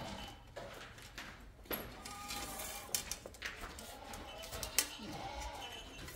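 A tape measure and ceramic wall tiles being handled: a few sharp clicks and taps, the loudest near the end. Short bleats from sheep or goats sound several times underneath.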